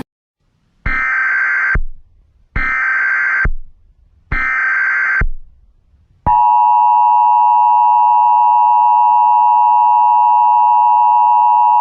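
Emergency Alert System header: three identical buzzy data bursts of about a second each, then from about six seconds in the steady two-tone EAS attention signal (853 and 960 Hz) held without a break, the tones that open an alert before its spoken message.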